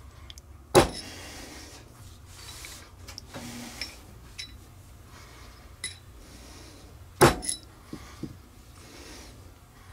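Two sharp knocks about six seconds apart and a few lighter clicks, from parts being handled on a workbench, over a low steady hum.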